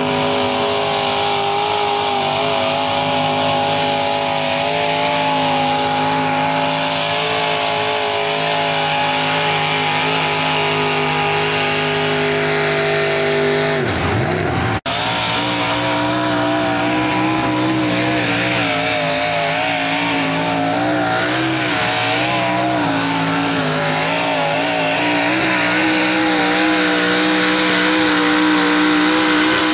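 Mini modified pulling tractors' engines running at high revs under load. The first holds a steady pitch, then its revs fall away just before a sudden cut about halfway through. A second tractor follows, its revs wavering up and down.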